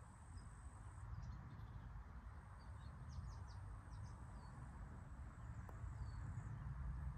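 Outdoor ambience: wind rumbling on the microphone, with scattered short bird chirps.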